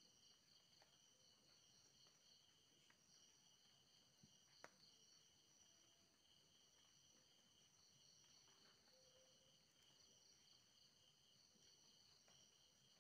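Faint, steady chorus of night insects, crickets trilling at several high pitches at once, with a single sharp click about four and a half seconds in.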